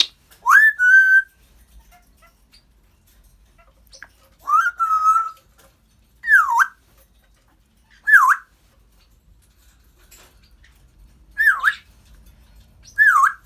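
African grey parrot whistling: two rising whistles that level off and hold, then four short swooping whistles that dip down and climb back up, spaced a few seconds apart.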